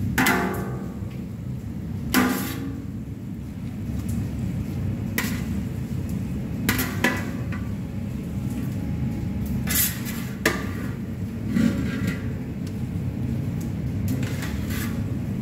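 Metal spatula knocking and scraping against a large stainless steel pan while pasta is stirred. The clanks come irregularly, and the first two, at the start and about two seconds in, leave the pan ringing briefly. A steady low rumble runs underneath.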